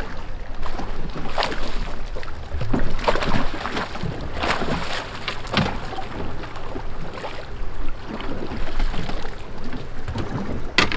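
Wind buffeting the microphone and water lapping around a small fishing boat at sea, swelling a few times into louder surges.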